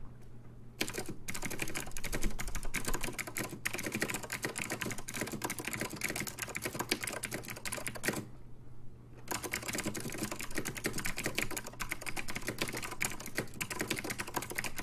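Fast, continuous typing on a Northgate OmniKey 102 keyboard with complicated blue Alps switches, a dense run of clicky keystrokes. The typing pauses for about a second just past the middle, then carries on.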